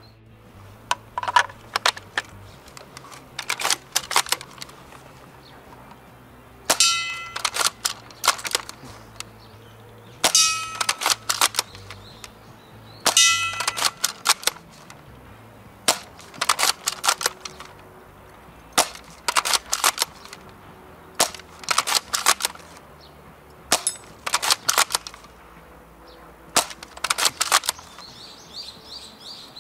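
Snow Wolf SV-98 spring-powered bolt-action airsoft sniper rifle firing repeatedly, about one shot every two to three seconds. Each shot comes as a cluster of sharp clicks, and a few carry a brief ringing note.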